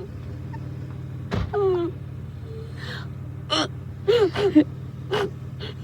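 A young woman crying after wisdom tooth extraction, still groggy from anesthesia: a sharp gasping breath about a second and a half in, then short falling whimpers and sobs.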